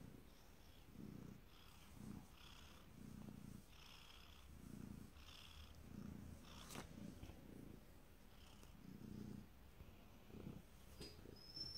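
Siamese-type domestic cat purring softly while being stroked on the head, the purr swelling and fading in slow waves about once a second with its breathing.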